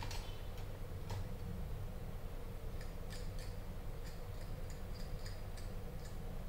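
Scattered faint ticks and clicks of small hand tools being handled at a repair bench, over a steady low hum.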